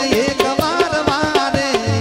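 Male singer holding and bending a sung line of a Gujarati devotional bhajan, accompanied by harmonium and a rhythm of quick hand-drum strokes.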